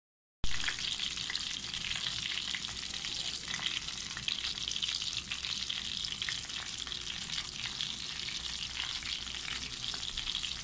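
Chicken pieces frying in hot oil in a metal pan: a steady, dense sizzle full of small crackles and pops, starting suddenly about half a second in.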